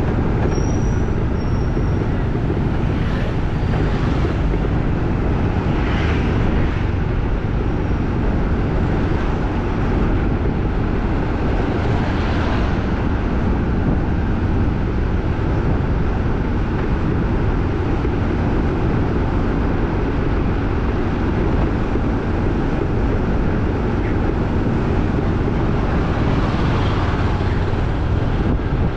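Steady outdoor street noise: motor traffic passing with a heavy low rumble.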